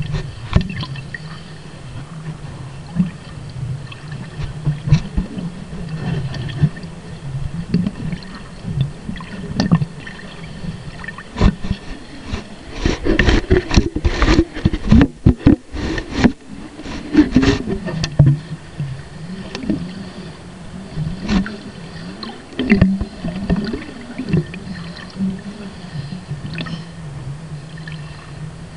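Muffled underwater sound picked up through a sealed plastic Tupperware camera housing: a steady low rumble with water gurgling, and many sharp knocks and clicks of the housing, thickest about halfway through.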